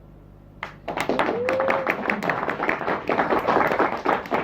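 Audience applause starting just under a second in: many hands clapping densely, with a voice calling out a whooping cheer.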